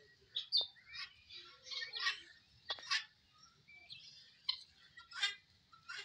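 A flock of helmeted guinea fowl calling: many short chirps and cries overlapping at irregular intervals.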